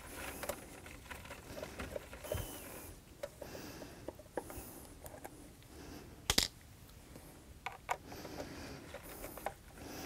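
A Phillips screwdriver backing out the top-cover screws of a 3.5-inch hard drive: faint scraping and small clicks with rustling handling noise, and one sharper click a little over six seconds in.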